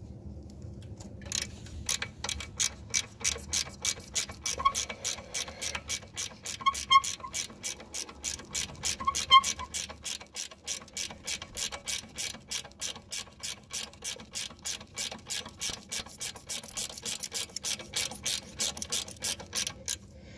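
Hand ratchet with a 10 mm socket clicking in a steady run, about four clicks a second, as it turns the Corvette ZR1's leaf-spring ride-height adjustment bolt to lower the car. The clicking starts about a second in.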